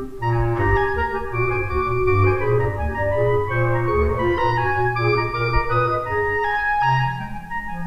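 Instrumental music of sustained chords over a low bass line, the notes changing every second or so.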